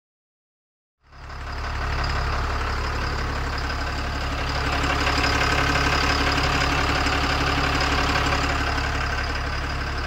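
Tata Signa BS4 truck's diesel engine idling steadily, cutting in about a second in and growing slightly louder midway.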